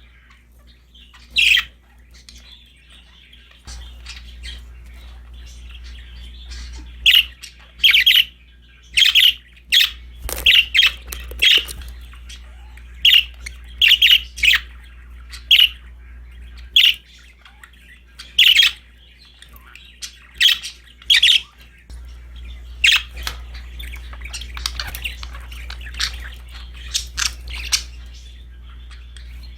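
Budgerigars chirping and giving short, sharp squawks, one after another at about one a second, over a low steady hum.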